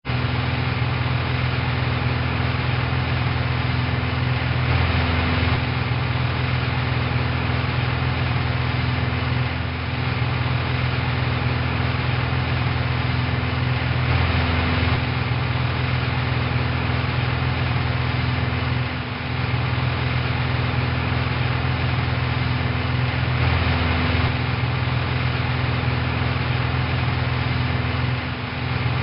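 Airplane in flight: a steady engine drone with a deep rumble and a constant hum on top. It swells briefly and then dips about every nine and a half seconds, like a repeating loop.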